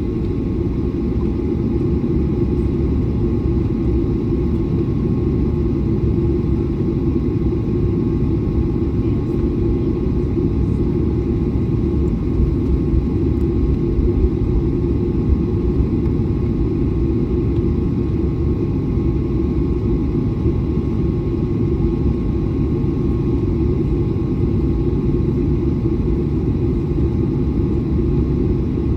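A jet airliner taxiing: a steady low rumble from its engines and rolling wheels, with a thin, steady tone held above it.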